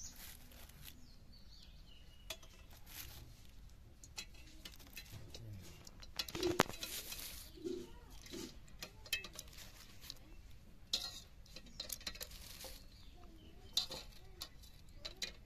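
Eggs being set one at a time into a stainless steel pot of water, with scattered light clinks of shell on metal and small splashes; the loudest knock comes about six and a half seconds in.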